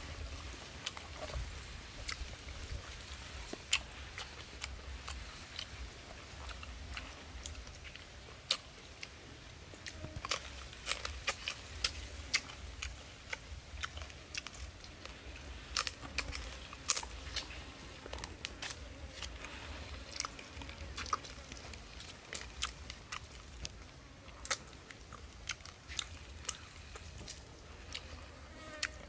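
A person biting and chewing roasted chicken off a stick, with irregular crunching clicks throughout.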